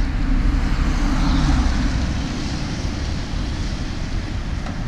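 Heavy diesel truck idling: a steady low rumble, with a brief hiss about a second in.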